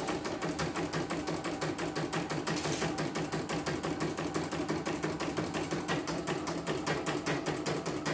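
CNY portable embroidery machine stitching steadily, its needle bar ticking in a rapid, even rhythm as it test-runs after its power supply was replaced.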